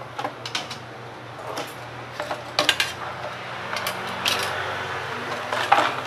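Hands handling objects on a workbench: a scattered series of light clicks and knocks, with cardboard packaging and a tablet being picked up and moved, over a steady low hum.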